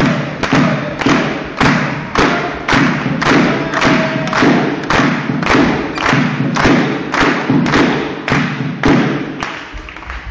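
Spectators beating out a steady rhythm in the sports hall: loud, echoing thuds at just under two a second, which stop near the end.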